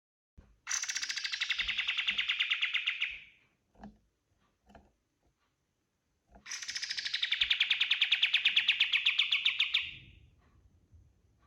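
Kapas tembak (olive-winged bulbul) singing two long, fast rattling bursts of song, each lasting about three seconds, with a short pause between them.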